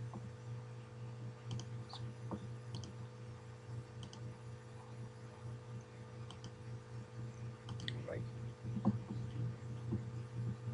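Computer mouse button clicks, scattered and irregular, some in quick pairs, over a steady low electrical hum.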